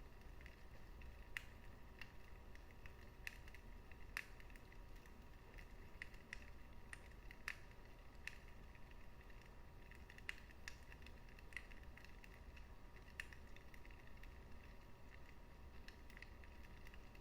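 Wood fire burning in a fireplace: irregular sharp crackles and pops, roughly one or two a second, over a low steady rumble of the flames.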